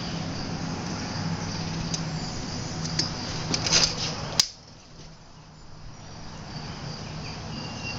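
Gamo break-barrel air rifle being cocked: a few metallic clicks about three to four seconds in, ending in one sharp snap as the barrel is locked shut. Insects chirr steadily in the background.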